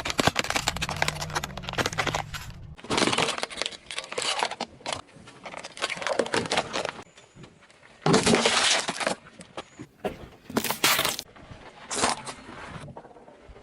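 Crunching, cracking and breaking of brittle objects crushed under a car's tyre, in several separate bouts with short pauses between them.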